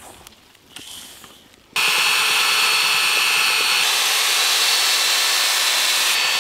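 An electric drill fitted with a long mixing rod churns a large pot of thick chocolate cake batter. It starts suddenly a little under two seconds in and then runs at a steady speed with a high motor whine and the wet churn of the batter.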